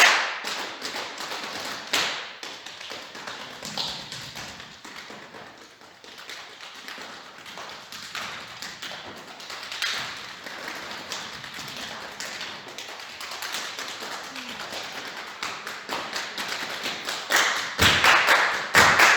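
Unpitched percussion played in quick, light taps, softest about six seconds in, building louder near the end, where deep drum strikes join in.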